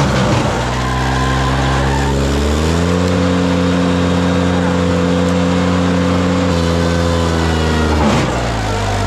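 Ventrac compact tractor engine running with a Tough Cut brush mower, its engine speed rising about two and a half seconds in and dropping sharply near the end.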